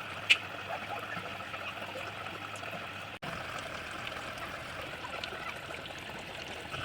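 Water trickling and splashing steadily down a small cement tabletop waterfall fountain, with a sharp click shortly after the start and a momentary break about three seconds in.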